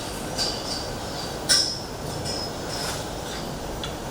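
Scattered short metallic clinks and squeaks over a steady background rush, with the loudest clink about a second and a half in, from the metal fittings of a cattle-weighing setup as the animals are handled.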